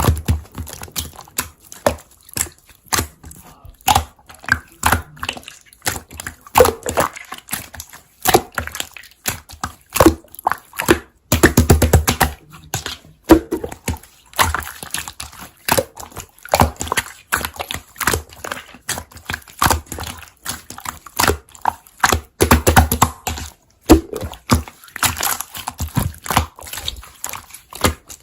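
Hands squishing, pressing and stretching slime, giving a continuous, irregular stream of sticky clicks and pops of trapped air.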